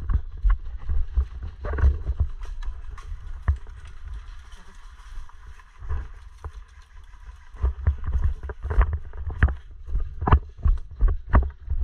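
Footsteps through dry grass and leaves with gear rustling and knocking against a body-worn action camera. Sparser in the middle, then steady steps about twice a second near the end.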